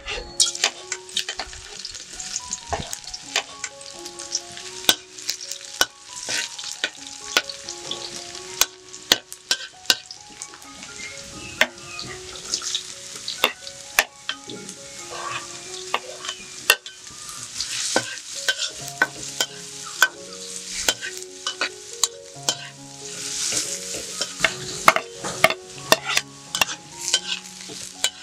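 Food sizzling in a hot pan while being stirred, with a utensil clacking against the pan many times at an irregular pace.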